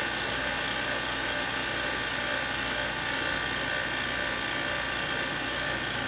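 Vacuum pump and high-voltage discharge supply running steadily: an even whirring hiss with a high-pitched whine over it.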